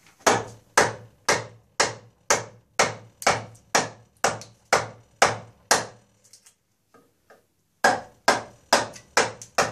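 Mallet striking a chisel to chop the end of a wooden spoke out of a wheel's nave: a steady run of sharp knocks about two a second, a pause of about two seconds with only faint taps, then quicker blows near the end.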